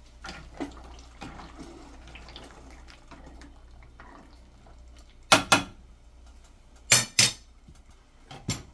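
Wooden spoon stirring penne in a pot of boiling water, with a low steady bubbling and small scrapes. Past the middle come sharp knocks against the pot, two quick pairs and one more near the end.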